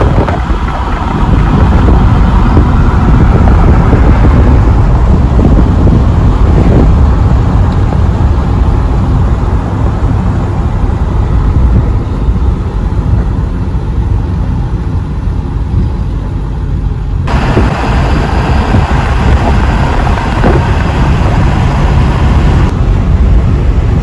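Road, tyre and engine noise heard from inside a moving vehicle: a loud, steady low rumble. It changes abruptly about seventeen seconds in, with more hiss higher up.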